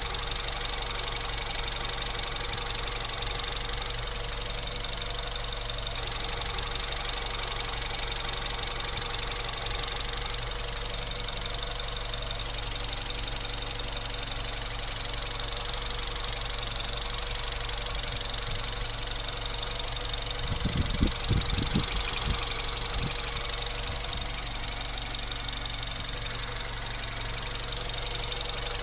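Peugeot 207 RC's 1.6 turbocharged four-cylinder engine running steadily, recorded to capture a noise the owner calls strange. About two-thirds of the way in, a few low thumps stand out over the engine.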